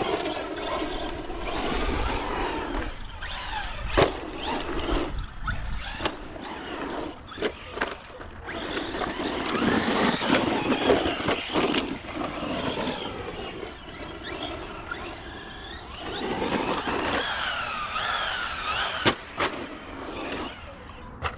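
Brushless electric motor and drivetrain of a 1/10 scale four-wheel-drive RC stadium truck (Arrma Vorteks 4x4 223S BLX on 3S) whining up and down in pitch as it accelerates and slows over a dirt track, with tyre noise on dirt and a few sharp knocks.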